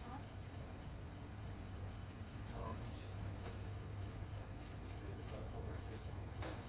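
A cricket chirping steadily in a high, even pulse, about four chirps a second, over a low background rumble.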